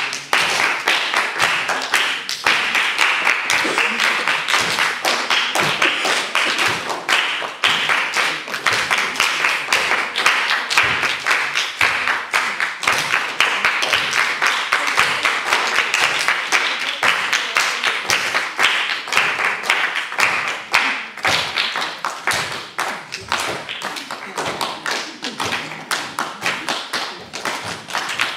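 A group of children doing body percussion: dense, irregular clapping and tapping with a hiss beneath it, swelling and fading.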